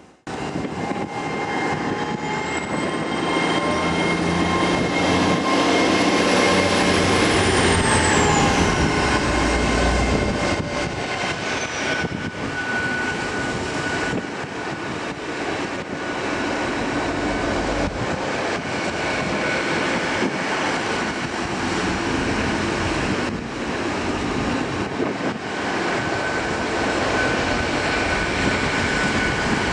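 GWR Class 800 train running slowly past along the platform, with steady rumbling from the wheels and rails and a constant whine from its traction equipment. In the first few seconds a high whine rises, then falls away before about ten seconds in.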